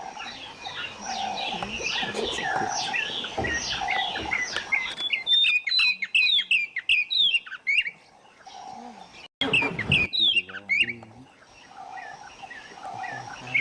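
Wild birds chirping in rapid runs of short falling notes, with a lower steady call recurring about once a second beneath them. The sound drops out briefly with a sharp break about nine seconds in.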